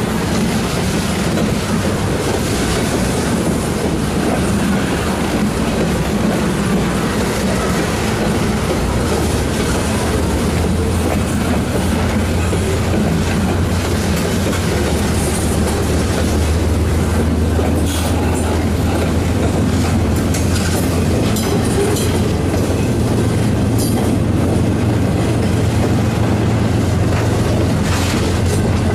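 Freight train flatcars loaded with military vehicles rolling past: a steady rumble and clatter of steel wheels on the rails.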